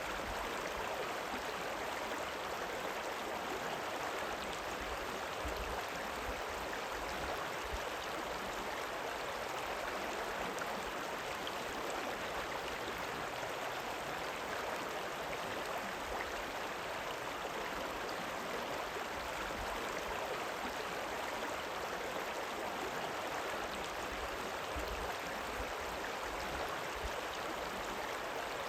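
Rippling river: a steady, unbroken rush of running water.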